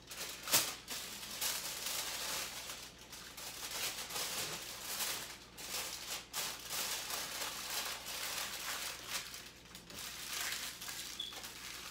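Aluminium foil crinkling and rustling as it is folded and crimped by hand into a packet, with a sharp crackle about half a second in.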